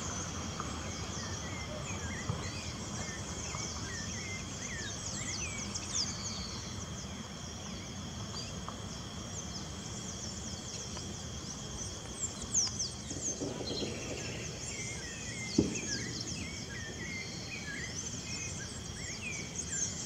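Outdoor ambience of many birds chirping in short falling notes over a steady, high insect drone and a low background rumble. A single sharp tap comes about three-quarters of the way through.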